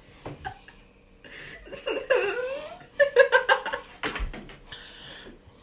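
People laughing and giggling in short bursts, including a run of quick ha-ha pulses about three seconds in.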